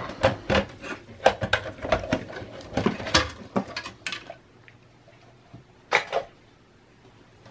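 Quick clicks, knocks and rattles of a Dell OptiPlex small-form-factor desktop's plastic and metal parts as a clipped-in part is released and pulled out of the chassis. The clatter is dense for about four seconds, then a couple of knocks follow about six seconds in.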